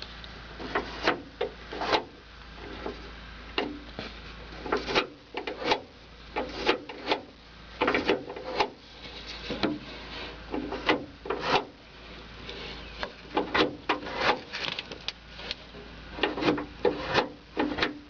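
Irregular clicks, knocks and scraping of plastic and metal parts as the interior door locking mechanism of a 1995 Isuzu pickup is handled and worked by hand.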